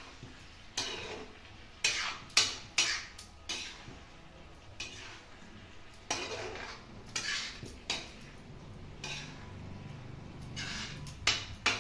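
Steel spoon scraping and clinking against a kadhai while cooked cabbage and potatoes are stirred and mixed, in a dozen or so irregular strokes.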